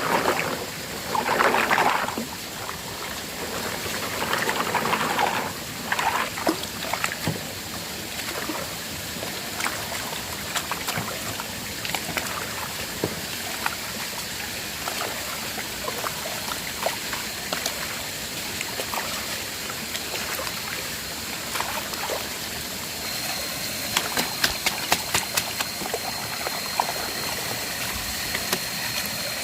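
Water running over rocks at a small waterfall or stream, with many short sharp clicks and knocks. There are a few louder rushes in the first several seconds, and a thin, steady high tone comes in about three-quarters of the way through.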